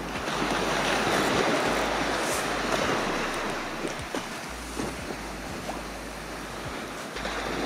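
Mediterranean surf washing steadily onto a sandy beach, a continuous rush of waves, with wind rumbling on the microphone now and then.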